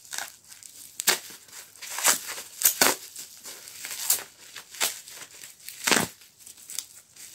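Plastic bubble wrap crinkling and crackling as it is pulled off a wrapped piece by hand, in uneven handfuls with a few louder crackles.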